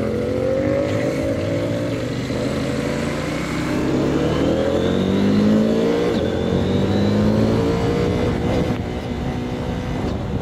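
CFMOTO 800MT Explore's parallel-twin engine with a 285-degree firing order, KTM-derived, running under way. It climbs in pitch and drops back a few times, about two seconds in and again around six seconds in, as it works up through the gears.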